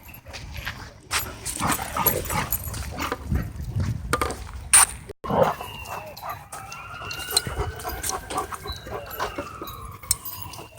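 Dogs scuffling and wrestling, with many short thuds and scrapes of paws and bodies. The sound drops out briefly about five seconds in. A long, high whine that rises and then falls runs through the second half.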